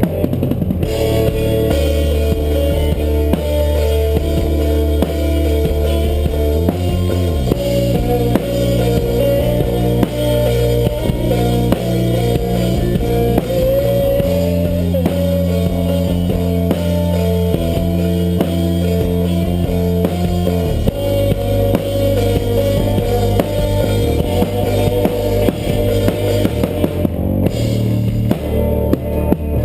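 Rock band playing live without vocals: drum kit and guitar over held bass notes that change every few seconds.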